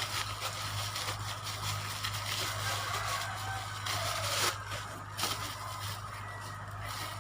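Plastic shipping package being torn open and handled, with scraping and crinkling that come in short bursts, strongest around the middle. A steady low hum runs underneath.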